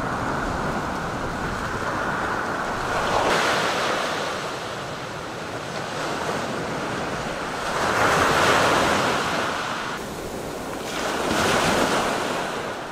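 Surf breaking and washing up a sandy beach, the wash swelling three times, with wind on the microphone.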